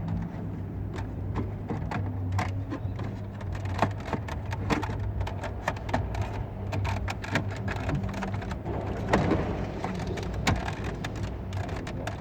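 Irregular small clicks, taps and rattles of plastic dashboard trim and screws being handled and fitted back into place, over a steady low hum.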